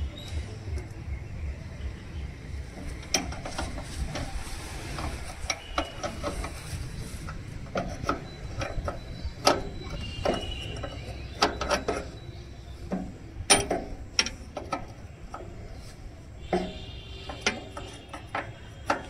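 Steel open-end spanner working fuel-line fittings on a tractor's diesel engine: a scattered string of sharp metal clicks, taps and clinks as the nuts are turned and the spanner is repositioned. A low throb runs underneath in the first half.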